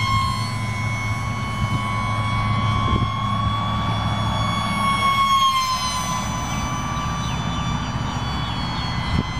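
Radio-controlled model airplane's motor and propeller giving a high, steady whine as it flies past, the pitch dipping about six seconds in. A low rumble sits underneath.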